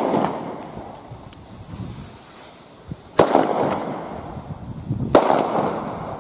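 Firecrackers (Böller) going off: two loud bangs about two seconds apart, each trailing off in a long echo, with the echo of a bang just before still dying away at the start.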